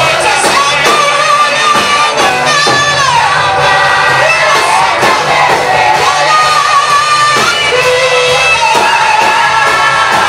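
Singers performing a Swahili worship song with band accompaniment and a steady beat.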